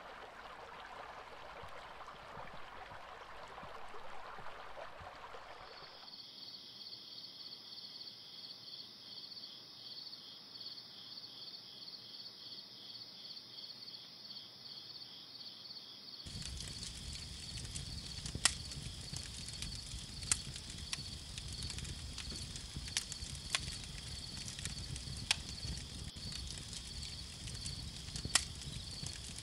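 Rushing creek water for the first few seconds, then insects calling in a steady high pulsing trill. Later, faint low water noise and a few sharp clicks join the trill.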